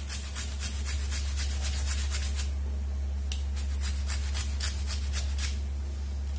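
Raw green mango being grated on a flat stainless-steel hand grater: quick rasping strokes, about four a second, with two short pauses, over a steady low hum.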